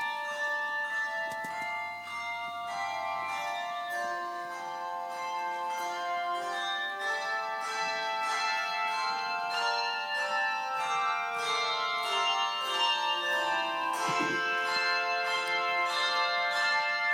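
A handbell choir playing a piece: many bells struck in turn and left ringing, so that their notes overlap into chords. It grows louder in the second half.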